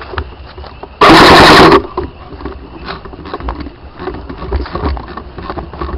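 An airsoft gun firing one full-auto burst of under a second, about a second in, very loud on the gun-mounted camera's microphone. Scattered small clicks and low thuds of handling and movement follow.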